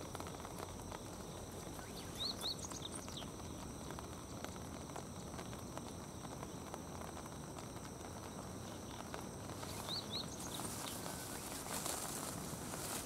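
Carrion crows pecking and stepping on wet gravel, faint scattered taps and scuffs over a steady outdoor hiss. A small bird gives short high rising chirps, a few about two seconds in and again about ten seconds in.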